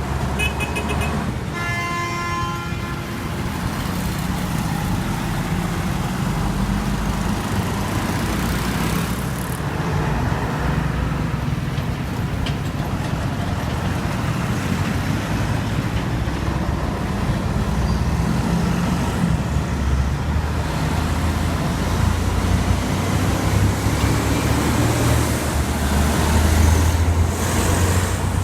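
City street traffic: heavy vehicle engines running with steady road noise, and a vehicle horn sounding twice in the first few seconds.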